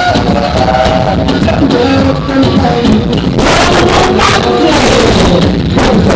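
Loud music played through carnival float sound-system speakers, its heavy bass overloading the microphone so the recording is distorted. A harsher, noisier swell rises over it about three and a half seconds in, lasting about a second.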